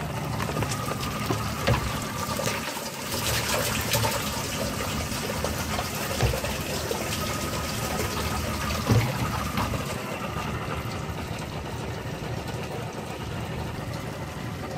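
Water pouring and sloshing as a bucket of live baitfish is emptied into a boat's live well, with a few knocks from the bucket.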